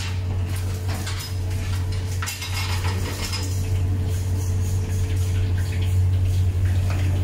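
Metal cooking utensils clinking and scraping against a large aluminium cooking pot, a cluster of clinks about two to three seconds in. A steady low hum runs underneath.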